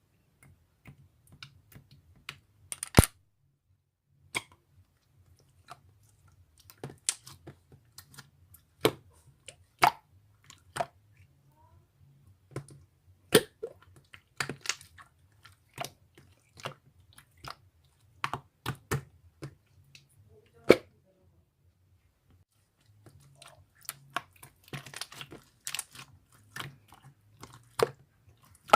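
Irregular small clicks and taps close to the microphone, with a quiet stretch of a couple of seconds about three quarters of the way through.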